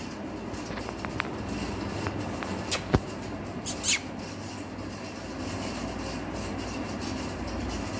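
Steady low background rumble with a few brief clicks and taps in the first half.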